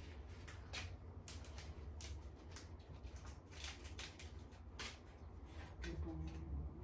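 Small plastic clothes hangers clicking and clattering against each other as baby clothes are hung, with cloth rustling, in a string of light, irregular clicks over a low steady hum.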